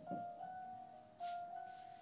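Soft, calm background music of held keyboard notes. A light knock sounds right at the start.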